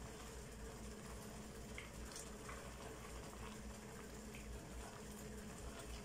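Faint, steady bubbling of a pot of mallow-leaf stew simmering on the stove, with a few soft taps of a silicone spatula stirring it.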